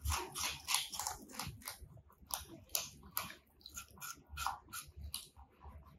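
Domestic rabbit biting and chewing a whole raw apple: a quick, irregular run of crisp crunches, several a second.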